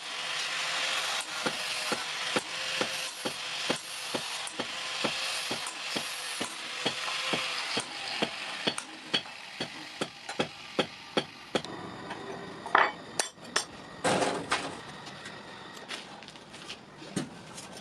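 Hand tools working the steel of a scissor blank. For about the first half there are rasping strokes; after that comes a run of light, even taps about two a second, then a few sharper, scattered knocks near the end.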